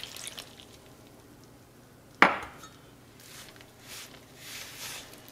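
Soft squishing and rustling of a hand mixing water into corn masa flour in a glass bowl, with one sharp knock of glassware about two seconds in.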